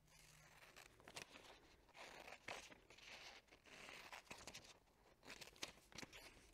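Scissors cutting through a folded sheet of paper: faint, irregular snips with soft paper crinkle.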